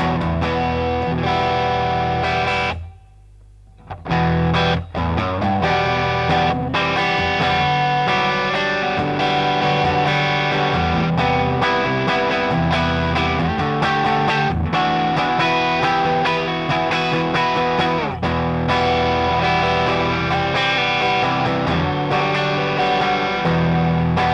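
Electric guitar played through a Grind Customs Catch 22, a Timmy-style overdrive pedal: overdriven chords and riffs, with a brief stop about three seconds in.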